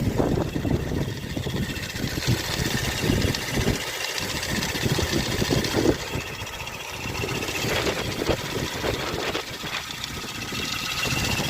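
Hyundai Elantra XD's 1.6-litre G4ED four-cylinder engine idling, with a faint high squeak from the power steering pump belt. It sounds as if the pump bearing has failed, but the owner says it hasn't: the likely cause is the belt itself or worn pulleys. Wind buffets the microphone.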